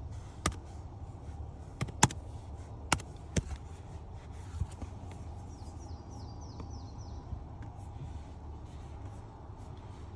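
Scattered sharp clicks and taps over a steady low hum, with a quick run of five short, high, falling chirps about six seconds in.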